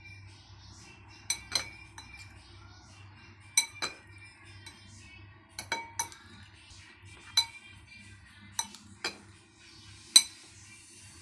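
Dishes and kitchen utensils clinking: about ten sharp, ringing knocks, several in quick pairs and the loudest near the end, over quiet background music.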